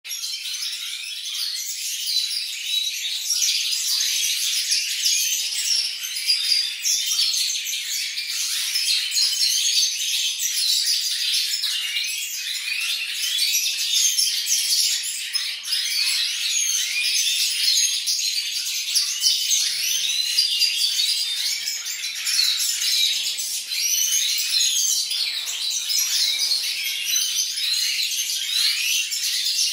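A flock of goldfinches, Siberian goldfinches (Carduelis carduelis major) and European goldfinches, twittering and chirping continuously, many high, quick calls overlapping.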